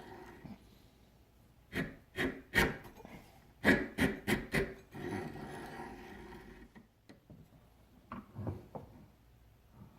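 Checkering file rasping across a Damascus steel knife spine, cutting thumb jimping: three strokes, then a quicker run of four, then lighter scraping that fades to near quiet.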